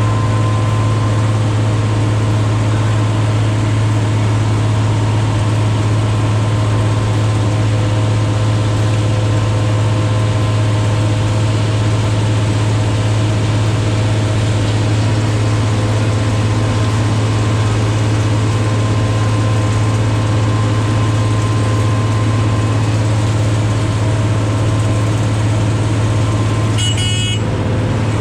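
Heavy asphalt-paving machinery running, a loud steady engine drone with a strong low hum and a few steady tones above it. A short high-pitched signal sounds near the end.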